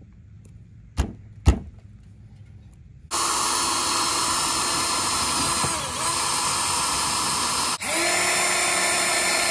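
Cordless drill with a step bit boring mounting holes through a truck's sheet-metal fender. Two sharp clicks come about a second in. From about three seconds the drill runs steadily under load, stops briefly near eight seconds and then runs on.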